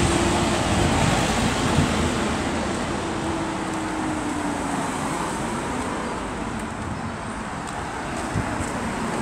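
Road traffic on a town street: cars driving past, with a low engine hum fading away in the first second. Gusty wind buffets the phone's microphone with a low rumble.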